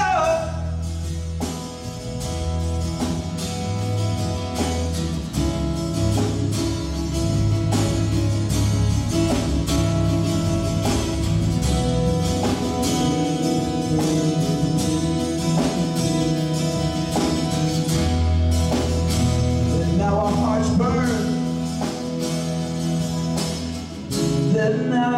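Worship band playing an instrumental passage: held guitar chords over a bass line, with a steady beat.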